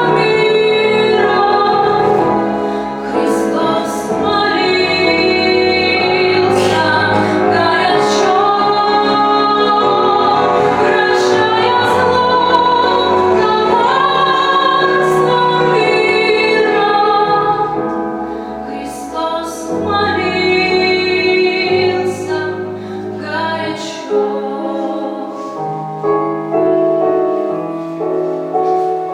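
A woman singing a song with piano accompaniment. A little past halfway the music turns quieter.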